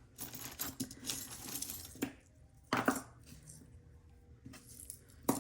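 Costume jewelry clinking and rattling as pieces are handled and shifted in a pile, with a run of small metal clicks in the first two seconds and a few sharper single clinks after.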